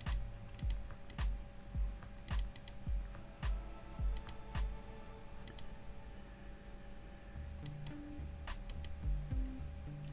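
Background music with a steady low beat, a bass line coming in near the end, and several sharp computer mouse clicks.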